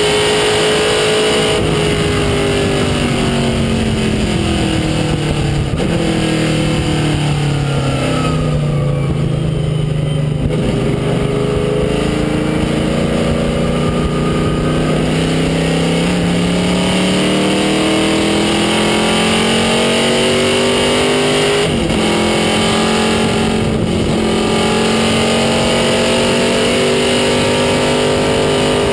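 DeKon Chevrolet Monza race car's engine at racing speed, heard from inside the cockpit. The engine note falls for the first third, is lowest about ten seconds in, then climbs again, with brief breaks for gear changes near the end.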